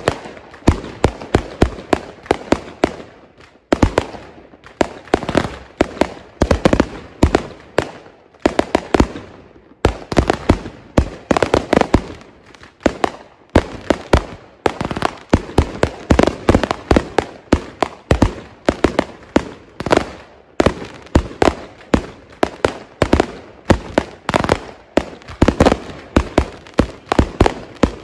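Consumer fireworks going off in a home display: a rapid, continuous string of sharp bangs, several a second, with brief pauses about four and ten seconds in.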